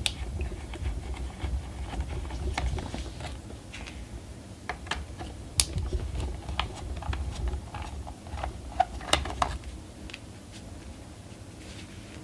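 Irregular light clicks and taps of a screwdriver working small screws out of a graphics card's cooler, with the screws and parts clinking as they are handled. The sharpest clicks come about five and a half seconds and nine seconds in, over a low handling rumble.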